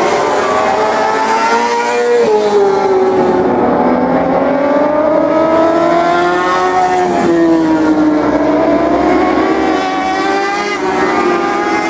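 Several road-racing motorcycles running at high revs through a corner. Their engine notes overlap and rise and fall in pitch the whole time.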